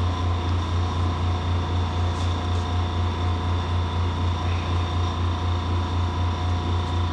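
A steady low mechanical hum with an even pulsing of about four beats a second.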